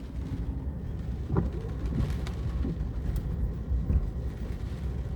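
Low, steady rumble of a car driving, with a few faint short sounds over it.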